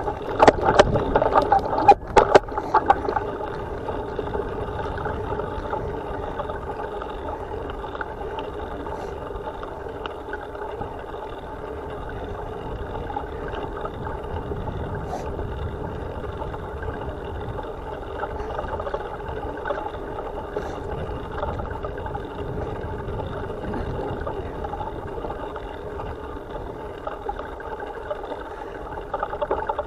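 Bicycle rolling along a dirt trail: steady rush of wind and tyre rumble on an action-camera microphone, with a few sharp knocks of the bike jolting over bumps in the first couple of seconds.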